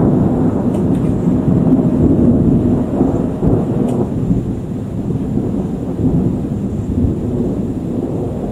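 Long rolling rumble of thunder from a dry thunderstorm, with no rain; it runs on loud and slowly fades over several seconds.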